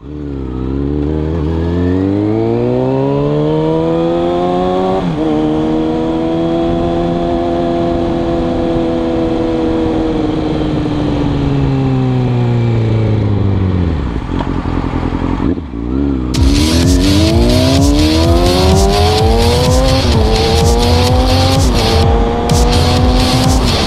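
Sport motorcycle engine accelerating, its pitch rising through the gears with an upshift about 5 s in, then held and winding down as the bike slows. About 16 s in a second bike accelerates hard with quick upshifts near 20 and 23 s, with heavy wind buffeting on the microphone.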